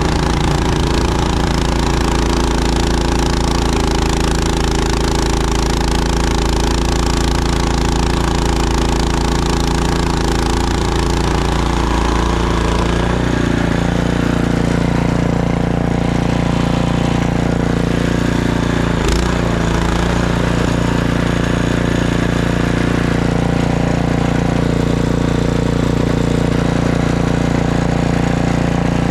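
Snowblower's small gas engine running steadily, its note shifting slightly about twelve seconds in, with one brief knock about nineteen seconds in.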